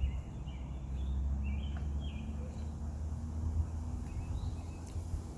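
Outdoor ambience: a steady low rumble of wind on the microphone, with a few faint, short, high bird chirps in the first couple of seconds.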